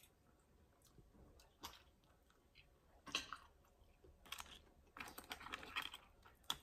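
Eating sounds: chewing and crackly handling of boiled crab legs. Mostly quiet at first with a single click, then a short crackle about three seconds in and a longer run of crackling from about four seconds on.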